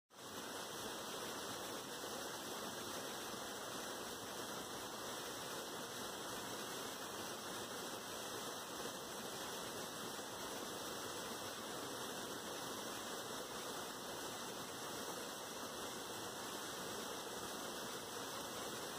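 A steady, even hiss with no distinct taps, rustles or other separate sounds.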